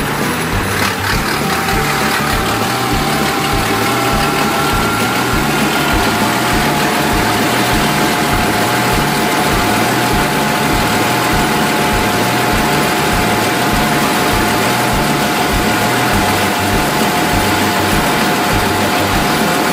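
Rice combine harvester running steadily, its engine giving an even low throb with a steady whine from the machinery over it.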